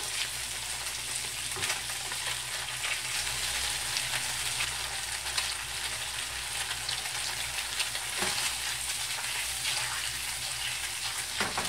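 Tofu cubes sizzling and crackling in a frying pan, fried in mayonnaise used in place of oil, with now and then a light knock or scrape of a plastic spatula as the browned cubes are turned over.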